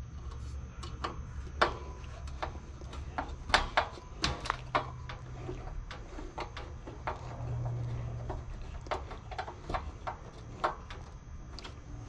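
Hand screwdriver working screws in a wall heater's sheet-metal chassis: irregular light metallic clicks and taps, the sharpest ones in the middle, over a steady low hum.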